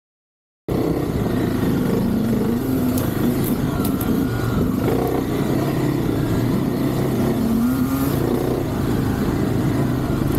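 Kawasaki KLX 300 dirt bike's single-cylinder four-stroke engine running at low road speed, cutting in suddenly about a second in; its pitch rises twice as the throttle is opened.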